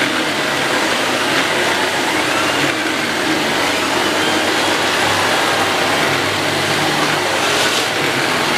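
Electrolux UltraFlex Green canister vacuum cleaner running steadily at a constant level, sucking air through a turbo brush nozzle, the nozzle's air-driven brush roll spinning.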